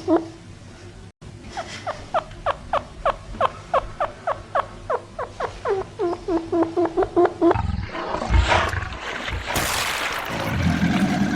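An animal calling in a rapid series of short notes, each falling in pitch, about four a second for some six seconds. About eight seconds in it gives way to a loud rushing noise.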